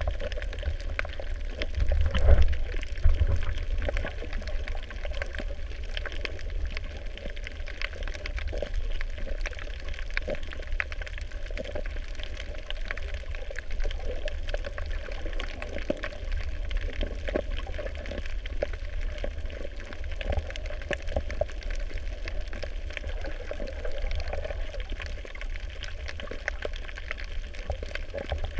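Underwater ambience with a low, muffled rush of moving water and constant faint crackling clicks, swelling louder about two seconds in.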